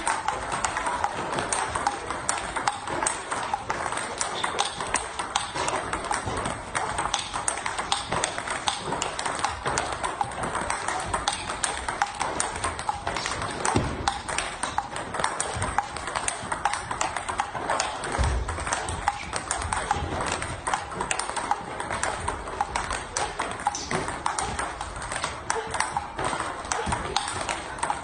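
Rapid, continuous clicking of celluloid-type table tennis balls in a multiball drill: balls fed in quick succession bounce on the table and are struck back with a rubber-faced paddle, several clicks a second in a steady rhythm.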